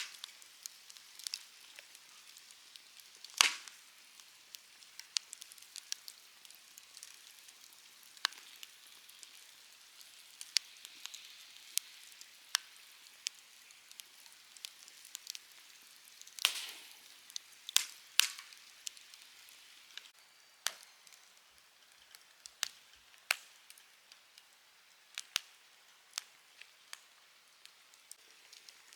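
Wood campfire crackling: irregular sharp pops and snaps over a soft hiss, with the loudest pops about three and a half seconds in and again around sixteen to eighteen seconds.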